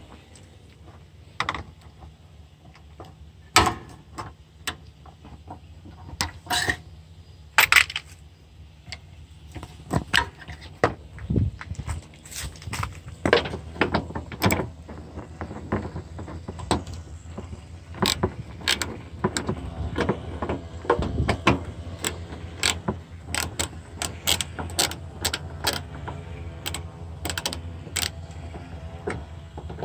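Hand socket ratchet clicking in runs as a bolt is turned, with scattered knocks and clicks of the socket and extension being handled. The clicks are sparse at first and come in quick runs from about a third of the way in.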